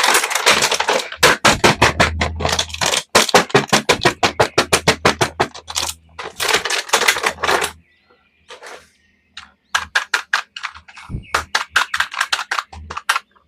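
Plastic toy packaging being handled and opened: rapid crackling clicks in dense runs, breaking off briefly about eight seconds in.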